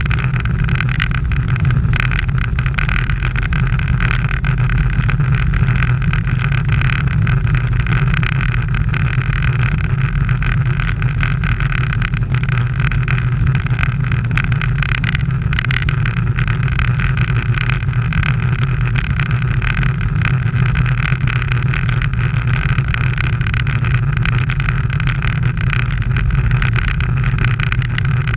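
Steady wind rumble and road noise on a bicycle-mounted action camera riding at speed, unbroken throughout.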